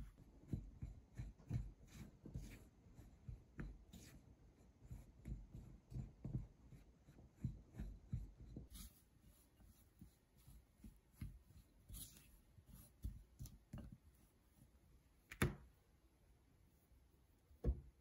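Silicone spatula cutting and pressing crumbly cookie dough in a glass bowl: soft, irregular thuds and scrapes a few times a second, then two sharper taps near the end.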